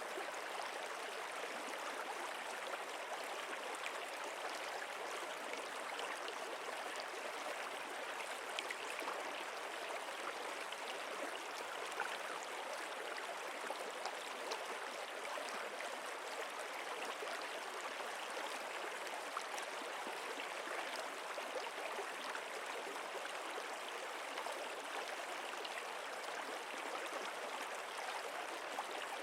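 Flowing stream water, a steady even rush with a fine texture of small splashes.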